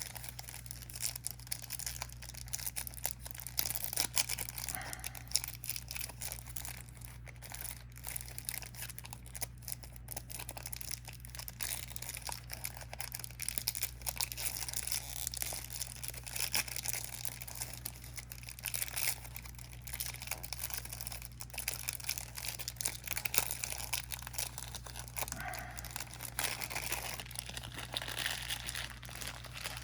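Plastic wrapping crinkling and tearing as a sealed card-game starter deck is unwrapped, an irregular crackle of handling that goes on throughout, over a steady low hum.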